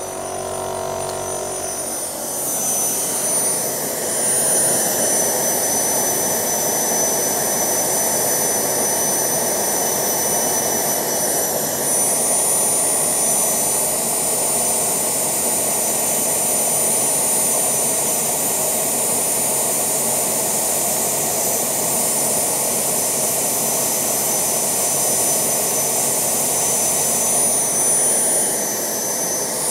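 Homemade Kamps-design gas turbine running on kerosene: a steady rushing roar with high-pitched whines over it. It grows louder a few seconds in, and the whine shifts slightly in pitch about twelve seconds in and again near the end.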